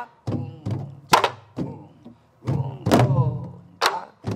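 Several Korean sori-buk barrel drums played together in a jungjungmori rhythm: sharp stick knocks on the drums mixed with deeper thuds that ring briefly, in an uneven repeating pattern.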